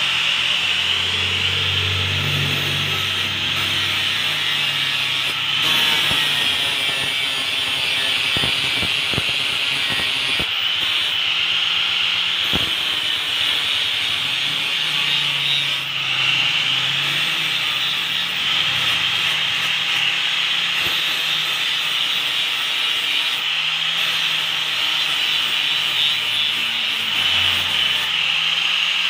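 Handheld angle grinder grinding the steel blade of a bolo machete, running as a steady high whine over a low hum.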